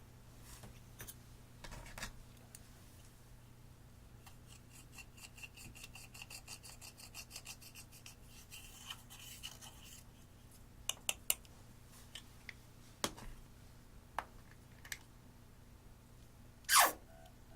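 A tool scraping with quick rasping strokes, about four a second, for several seconds, in the way pressed eyeshadow is scraped and cut. Then come a few sharp clicks and one loud short swish near the end.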